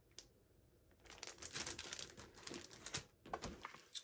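Clear plastic packaging on scrapbook sticker and die-cut packs crinkling as the packs are handled, starting about a second in after a short pause.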